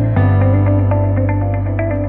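Background music: short plucked notes over sustained low chords, with a chord change just after the start.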